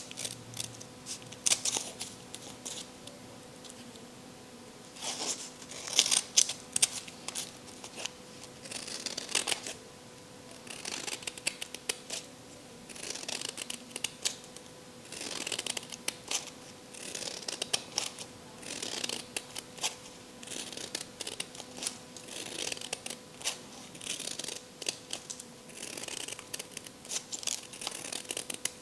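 Scissors cutting sheets of craft paper: runs of quick snips with short pauses between them, with a faint steady hum underneath.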